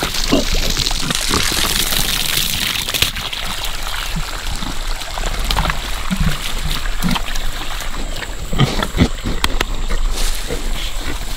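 Water from a garden hose pouring into a muddy pig wallow, with pigs sloshing through the mud and giving short grunts now and then.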